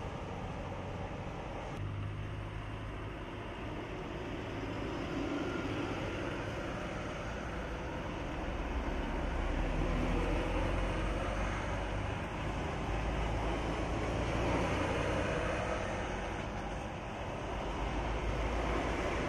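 Mercedes-Benz touring coaches driving past one after another, their diesel engines running and tyres on the road, getting louder as each coach goes by and then fading.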